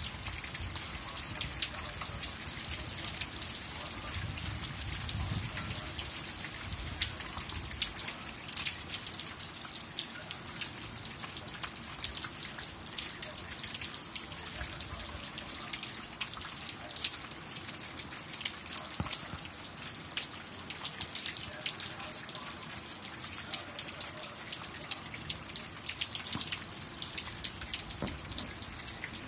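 Steady rain falling, with many separate drop hits throughout.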